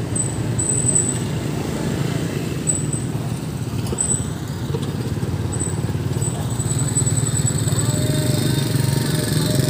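Road traffic crossing a railway level crossing: cars and motorcycles running past in a steady low rumble. A thin high whine comes and goes several times over it.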